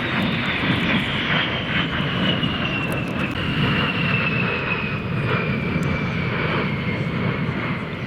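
Aircraft flying past at an air show: a loud engine roar with a high whine that slides slowly down in pitch as it goes by, starting to fade near the end.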